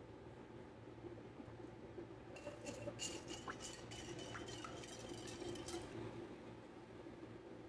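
A wire balloon whisk beating egg and liquid in a glass bowl. Starting a little over two seconds in, its wires tick and clink rapidly against the glass for about three and a half seconds, over a low steady hum.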